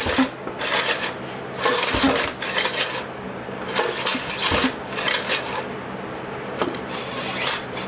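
Evinrude 3 hp outboard being pull-started several times, its recoil starter rattling and the motor turning over without firing: no spark is reaching the plug.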